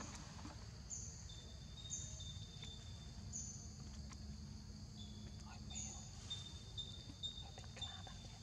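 Forest ambience: short, high, falling chirps repeat about once a second, with strings of a thin, steady, lower-pitched call between them, over a low steady rumble.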